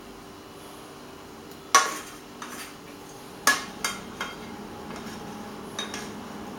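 Metal spoon clinking and scraping against a stainless steel frying pan while sauce is spooned out of it, several sharp clinks, the loudest about two seconds in and again midway, over a faint steady hum.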